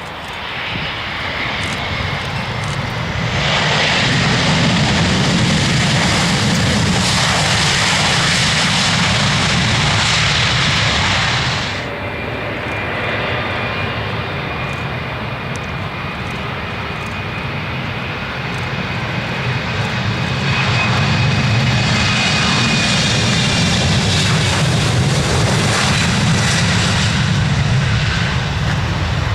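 Airliner engines running loud, a wide rushing noise with a thin high whine that swells twice: once for several seconds ending abruptly about twelve seconds in, and again later for about seven seconds before easing off.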